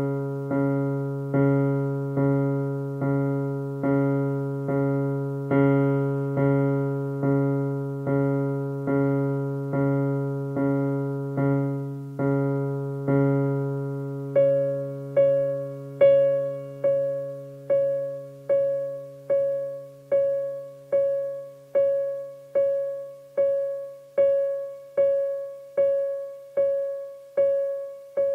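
Casio Privia PX-330 digital piano playing one low note struck over and over at an even pace, about every three-quarters of a second, then from about halfway a single higher note repeated the same way. The notes are played to show a fault in how the notes are tuned.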